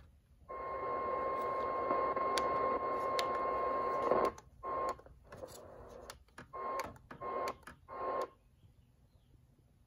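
Mercedes-Benz Alpine CM2191 car radio on the AM band, giving steady static hiss with a constant whistle tone. It is then tuned up the band, so the static comes in short bursts that cut in and out between steps. It goes quiet about eight seconds in.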